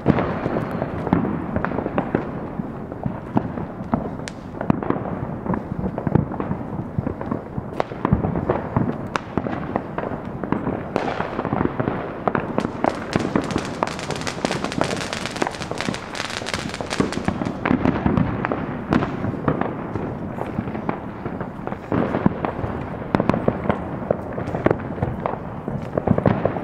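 Fireworks and firecrackers going off all around, a dense, continuous barrage of pops, cracks and bangs at varying distances. Partway through, a hiss rises over the popping for several seconds, then fades.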